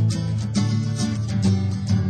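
Instrumental introduction of a song, led by strummed acoustic guitar with a steady beat of about two strums a second.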